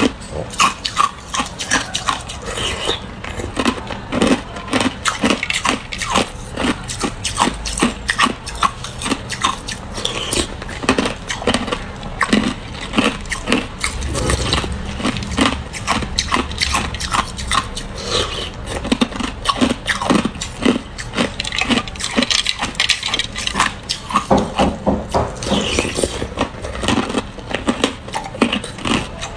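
Ice cubes crunched and cracked between the teeth: an uneven run of sharp, crackling bites, several a second.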